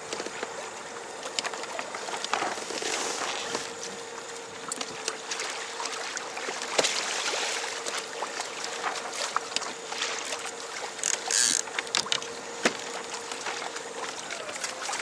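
Water rushing and splashing against a sailing kayak's hull, with the steady whine of its Torqeedo electric motor running. Scattered knocks and clicks sound throughout, and the motor's whine stops near the end.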